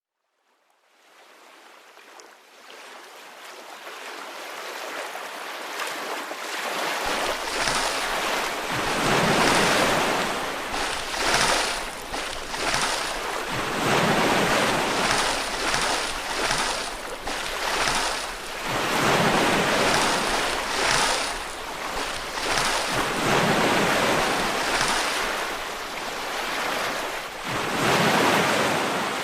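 Ocean surf sound effect: waves washing and breaking in repeated surges every second or two. It fades in from silence over the first several seconds, and a low rumble joins about seven seconds in.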